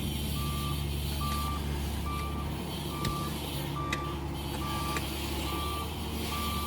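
A heavy machine's reversing alarm beeping steadily, a single tone a little over once a second, over its engine running at a steady low drone; a few sharp knocks are heard in the middle.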